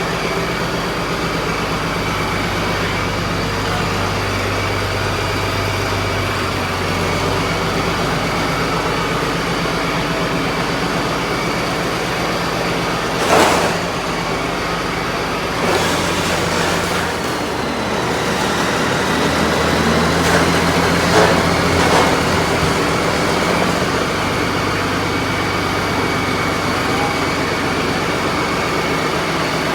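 Heavy diesel engine running steadily, its note shifting a couple of times, with a sharp clank about a third of the way in and a few more knocks later on.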